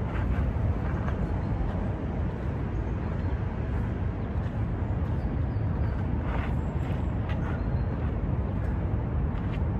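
Steady low outdoor rumble, with a few faint scuffs of feet on gravel, the clearest about two-thirds of the way in.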